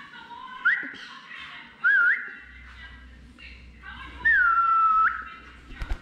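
Three clear whistles: a quick rising one about a second in, a short wavering one, and a longer one that falls, holds and flicks up at the end. Near the end come a few quick flaps as a cockatiel flies onto an outstretched hand.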